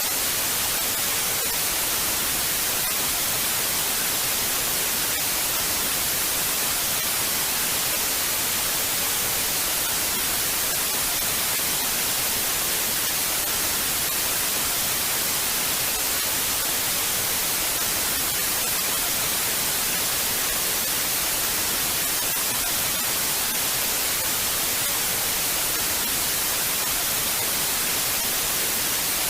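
Television static: steady, even hiss of an untuned analog TV, rich in high frequencies, with no breaks or changes.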